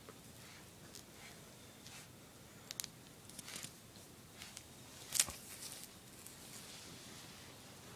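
A puppy tussling with a string mop on a tile floor: scattered soft scrapes, scuffs and clicks of mop strands and paws on the tiles, with one louder scrape about five seconds in.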